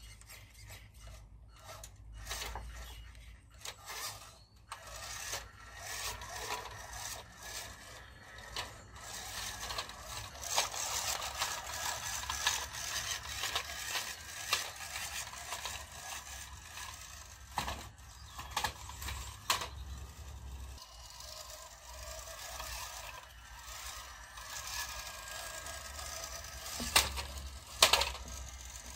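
Small RC rock crawler truck's electric motor and geared drivetrain, fitted with new drive shafts, whining steadily while it crawls, with its tyres scraping and clattering over brick and wood. Two sharp knocks near the end.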